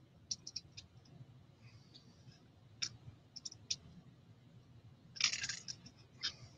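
Plastic LEGO pieces clicking as they are handled and pressed together: scattered sharp little clicks, a quick cluster near the start, and a longer, louder scraping rattle about five seconds in.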